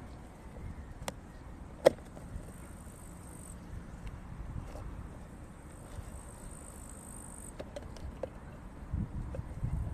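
An insect's faint, high-pitched steady trill breaks off after a few seconds and starts again near the end. A single sharp click about two seconds in is the loudest sound, and low handling rumbles follow near the end.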